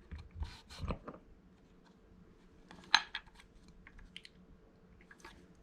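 Scattered small clicks and taps from handling a Delrin rocket-motor tube clamp and its fittings, with one sharper click about three seconds in.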